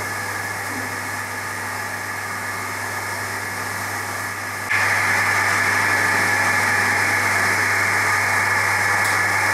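Steady hum of a running motor with a low drone, stepping up sharply in level about halfway through and holding there.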